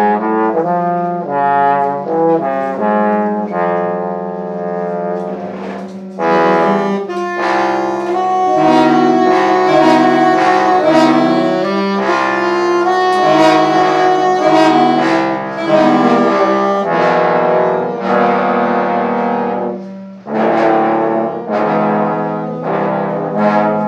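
Small live horn band of saxophones and a trumpet playing a tune in layered, held notes. The playing breaks off briefly about six seconds in and again about twenty seconds in, then comes back in.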